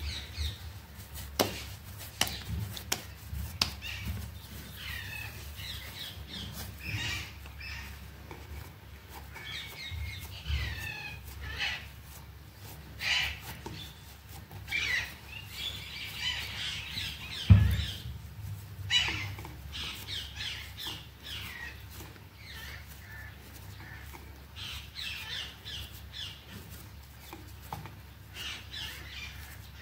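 Small birds chirping over and over in the background, with soft knocks and rubbing from hands kneading dough on a wooden plate. One louder thump comes a little past halfway.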